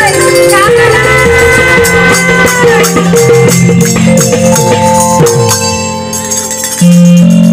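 Live band music played through microphones: keyboard holding notes and a mandolin, over hand percussion keeping a steady beat. The music thins out briefly about six seconds in, then comes back in full.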